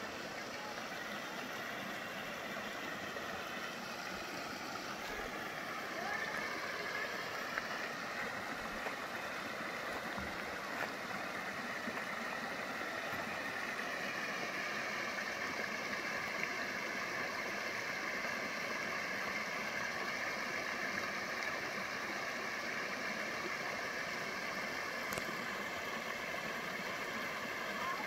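Creek water pouring over a small rocky cascade: a steady rushing that grows slightly louder about six seconds in.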